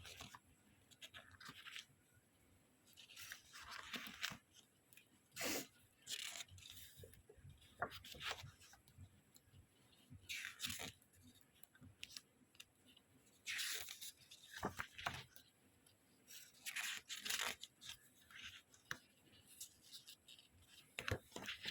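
Packaging being handled and opened: irregular rustling, crinkling and short tearing or scraping noises, in scattered bursts with quiet gaps between them.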